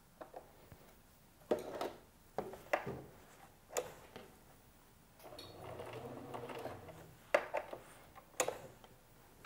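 Bernina sewing machine stitching slowly for about two seconds in the middle, with several sharp clicks and knocks before and after as the machine and fabric are handled.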